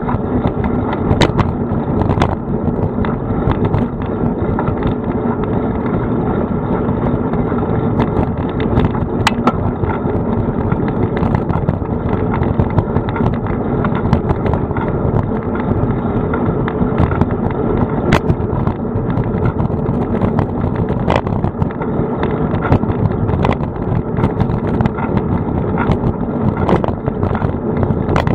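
Steady noise of a bicycle ride on city streets: wind on the bike-mounted action camera's microphone and tyres on the road surface, with scattered sharp clicks and rattles from bumps.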